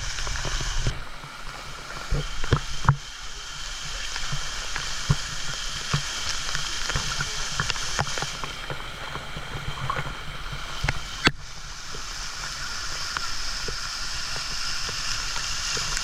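Water sloshing and gurgling around swimmers in a natural rock pool, with scattered small splashes and knocks and one sharp, louder knock about eleven seconds in.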